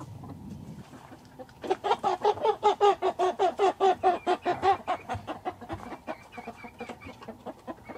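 Young chickens squawking as they are put up to roost. About one and a half seconds in comes a loud, fast run of calls, about six a second, lasting some three seconds. It trails off into fainter clucks, with thin high peeps near the end.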